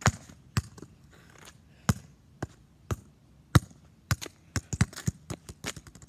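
Football being juggled with the feet: about a dozen sharp thuds of foot against ball at uneven intervals, some coming in quick pairs.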